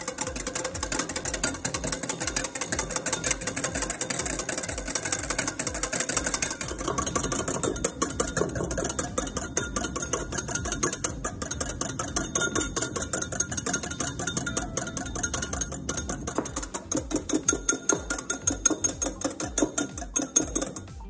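Wire balloon whisk beaten fast against a small ceramic bowl, a rapid, steady run of clicks and scrapes, louder near the end: instant coffee and water being whipped toward stiff peaks for dalgona coffee.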